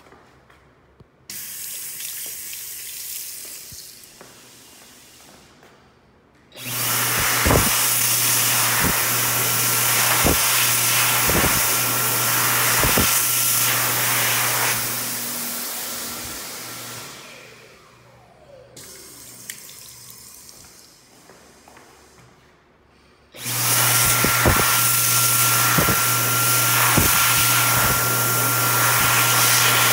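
Dyson Airblade V (HU02) hand dryer blowing a loud jet of air, with a steady hum and a thin whistling tone. It starts about six seconds in, runs about ten seconds, then winds down. It starts again abruptly about twenty-three seconds in. Before it, a sensor faucet runs briefly.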